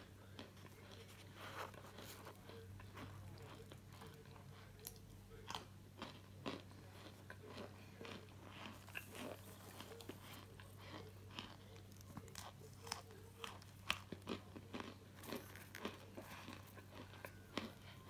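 Compressed chunks of powdered starch being crushed and crumbled between the fingers: faint, irregular crunches and crackles, several a second, over a steady low electrical hum.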